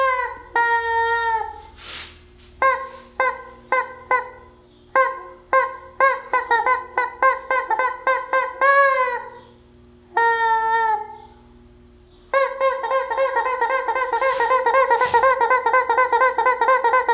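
Noise-making toy chicken honking and squawking: a string of separate short honks with brief pauses, then, about twelve seconds in, a fast unbroken run of honks.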